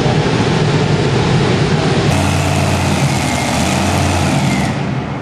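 Heavy engine of a modified pulling tractor running at idle, a loud, steady low hum and rumble. About two seconds in the sound changes abruptly to a steadier low hum with more hiss, and it falls away near the end.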